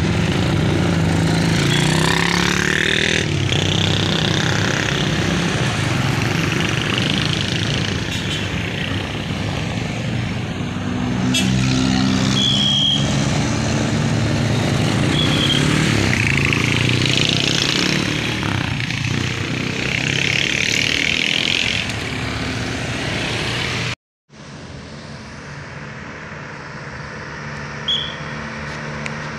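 Steady motorcycle and scooter traffic, engines passing one after another in a stream, with a few short high-pitched toots. The sound cuts out abruptly about 24 seconds in, then comes back as quieter road traffic.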